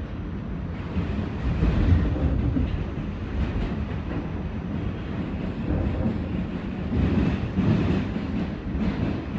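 R46 subway car running at speed, heard from inside the car: a heavy rumble of wheels on track that swells and eases, with repeated clacks of the wheels over the rails.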